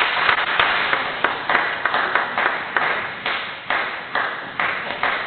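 Table tennis ball being struck and bouncing, about two sharp clicks a second, each with a short echo, slowly getting quieter.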